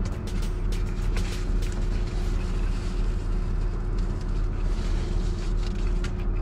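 Steady low hum of an idling Infiniti car heard inside its closed cabin, with a few light clicks and rustles of a paper food wrapper.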